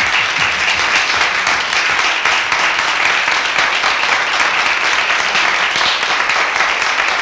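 Studio audience applauding: dense, even clapping from many hands at a steady level.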